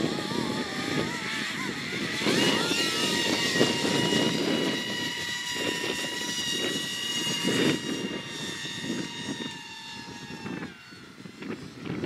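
Electric ducted-fan whine of an FV-31 Cypher RC VTOL jet taking off and climbing away. The high whine rises in pitch about two seconds in, holds steady, then drops and fades near the end. Gusty wind rumbles on the microphone underneath.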